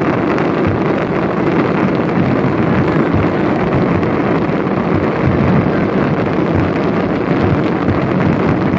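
Dense fireworks barrage: many aerial shells bursting at once while fountain effects fire along a bridge, their booms and crackle merging into one steady loud wash of noise, shot through with many small sharp cracks.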